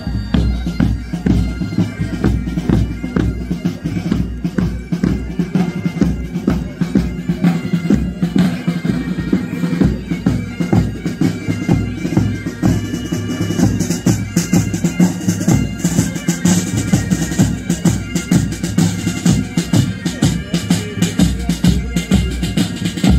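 Military pipe band playing: bagpipes sounding a tune over their steady drones, with snare and bass drums beating time.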